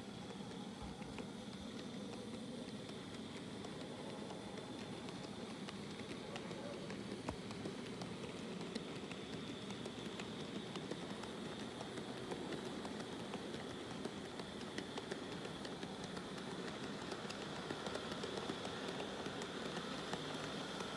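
Model train running along its track: a steady whirring rattle of the small wheels and motor, with frequent tiny clicks, growing slightly louder as it goes.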